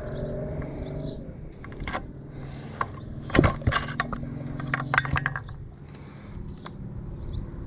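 Sharp metallic clicks and rattles of chainsaw parts being handled, the loudest cluster about three and a half seconds in, over a steady low hum.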